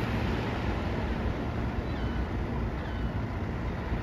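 Surf and wind noise with a low, steady engine hum underneath.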